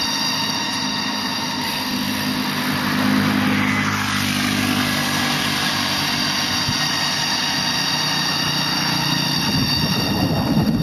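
A ghostly, steady whine of insects, likely cicadas, with several high tones held together without a break. Under it runs a low rumble of wind and riding noise that swells briefly about three seconds in and again near the end.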